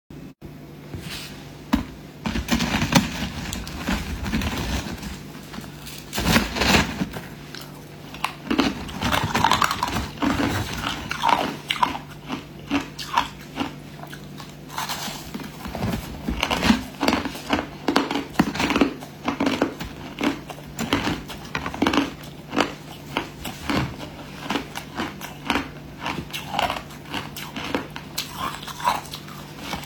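Crushed ice being bitten and chewed close to the microphone: a dense, irregular run of sharp crunches that keeps going, over a low steady hum.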